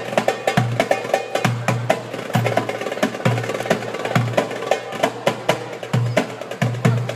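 Background music with a steady drum beat and sharp, wood-block-like percussion.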